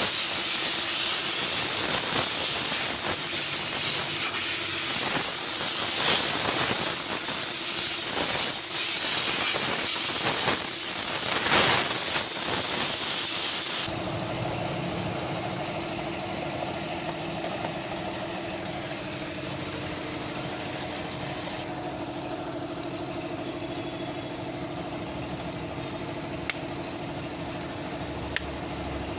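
Loud rushing hiss of compressed air for the first fourteen seconds, with the air filter out for cleaning; it cuts off abruptly and a quieter, steady engine hum is left.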